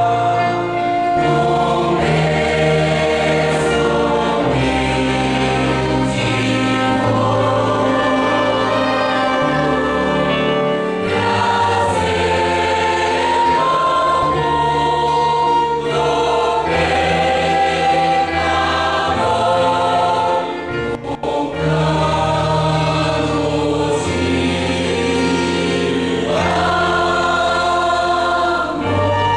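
Mixed choir singing a Christmas cantata piece, with a small band accompanying. There is a brief break in the sound about two-thirds of the way through.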